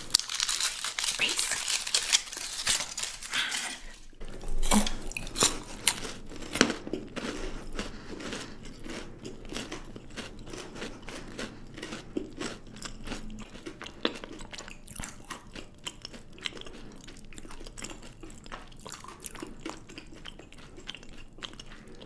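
Close-up chewing and crunching of chocolate, with irregular wet mouth clicks and bites. It opens with a few seconds of dense crackly noise before settling into steady chewing.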